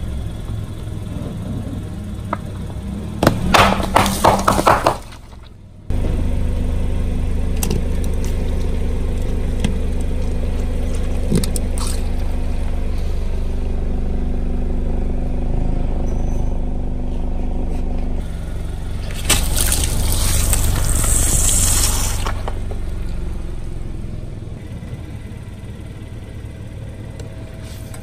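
A car running slowly as its tyre crushes crunchy objects: a burst of cracking and crunching about three seconds in and another around twenty seconds in, over the steady low sound of the engine, which fades near the end.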